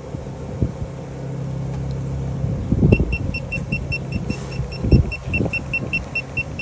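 Rapid, regular high-pitched electronic beeping, about five short beeps a second, starting about three seconds in. Under it runs a steady low hum, with a few dull thumps.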